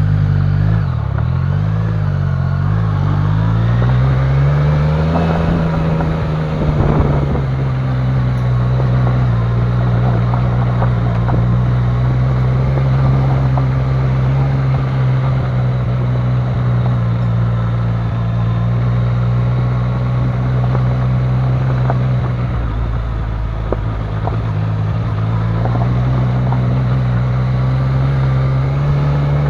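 Yamaha Niken GT's three-cylinder engine pulling away and riding slowly over a forest track, its pitch rising and falling through the first few seconds and then holding steady at low revs. Near the end it dips and rises again. A few sharp knocks about seven seconds in.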